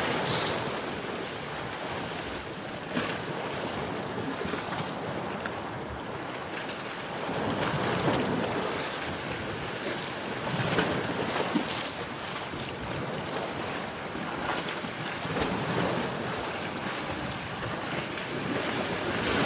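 Sea surf: waves washing and breaking on a shore, swelling and falling back every few seconds, with a few brief sharp splashes. Wind on the microphone.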